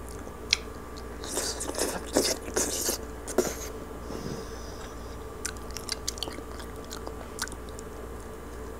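Crispy roast pig's head (lechon) skin crackling and crunching as it is torn off by hand and eaten: a dense run of crunches in the first half, then scattered small crunches and clicks.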